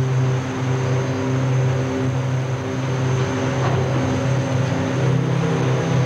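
Steady, loud, low machine hum with a row of overtones that swell and fade in a slow, uneven pulse.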